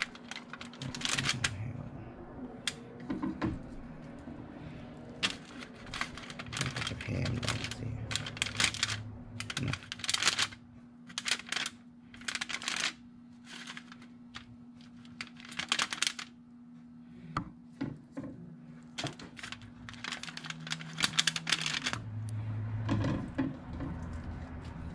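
Aluminium foil crinkling and crackling in irregular bursts as prawns are handled on a foil-lined tray, over a steady low hum.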